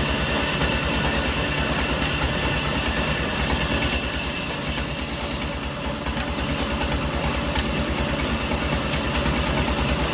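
Sawmill machinery running steadily with a fast, even low throb; a high whine comes in about four seconds in and fades out a second or two later.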